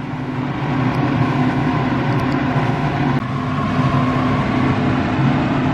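Small workshop air compressor running with a steady, even hum.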